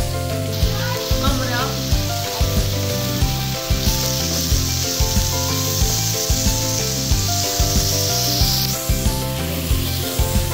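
Sliced pork and enoki mushrooms sizzling on an electric tabletop grill pan as they are stirred with a fork. The sizzle starts about half a second in, grows louder about four seconds in, and dies away about nine seconds in.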